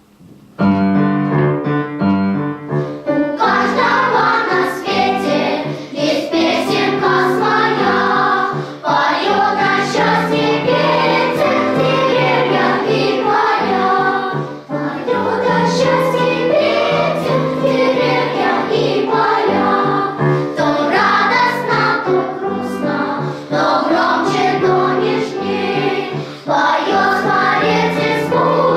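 Children's choir singing with piano accompaniment. A short piano introduction starts about half a second in, and the voices enter at around three and a half seconds.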